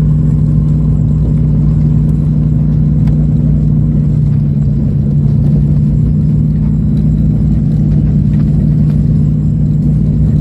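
Aircraft engine drone heard from inside the passenger cabin: a loud, steady, low hum with a constant pitch that does not change.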